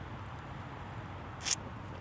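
Steady low background noise with one brief, sharp hiss-like tick about a second and a half in.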